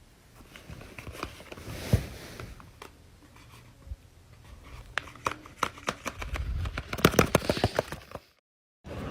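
Paper being handled: crinkling and rustling with scattered sharp clicks and taps. It grows busier toward the end, then cuts off abruptly into dead silence.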